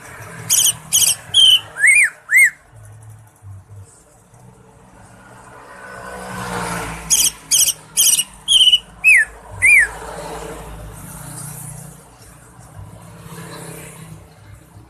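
Cucak ijo (green leafbird) singing two loud bursts, one about half a second in and one about seven seconds in, each a quick run of about six sharp ringing notes ending in arching up-and-down whistles. A steady low traffic-like rumble runs underneath.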